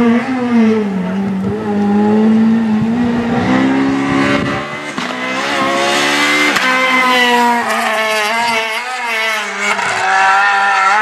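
Renault Clio R3 rally car's engine revving hard as it approaches and drives through a bend. The pitch climbs and drops sharply several times as the driver shifts gears and lifts off.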